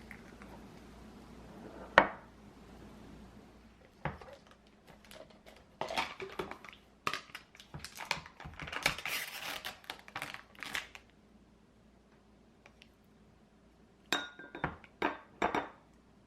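Dishes and utensils being handled: a sharp knock about two seconds in, a run of clattering and rustling, then near the end a few clinks, the first one ringing briefly.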